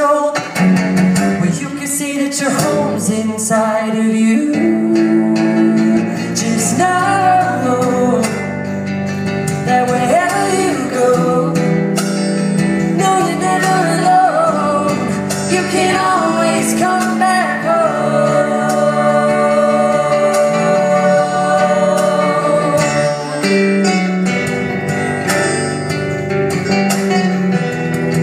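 Live acoustic band music: a man singing over strummed acoustic guitar, with sustained cello notes, keyboard and sitar, heard from the audience in the hall.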